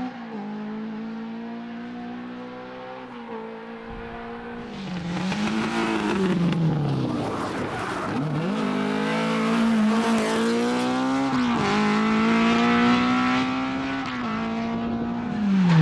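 Rally car engine at high revs, the revs dropping and climbing again several times as the driver lifts and shifts. The car gets louder from about five seconds in as it comes closer.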